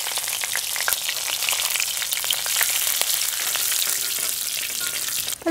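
Kerala tempering sizzling steadily with fine crackles: fresh curry leaves spitting in hot coconut oil with mustard seeds, urad dal and dried red chillies. Later on a spoon stirs it.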